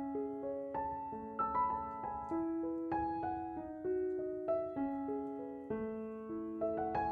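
Background piano music: a steady, gentle run of notes, several a second, each ringing on and fading.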